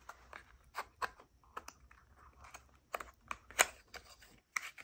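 Irregular light clicks and taps of a small cardboard product box being handled and opened, with the sharpest click about three and a half seconds in.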